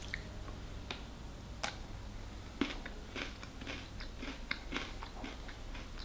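A person biting and chewing a yogurt-covered pretzel, with a few sharp crunches in the first three seconds and then a run of softer crunches.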